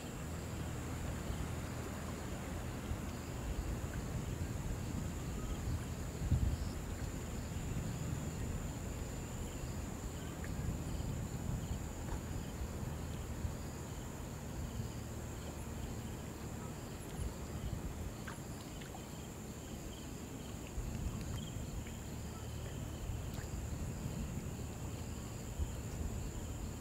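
Shallow river water lapping and moving over the bed, with a steady high-pitched drone of summer insects running through it. There is a low rumble that swells and fades, and a brief low bump about six seconds in.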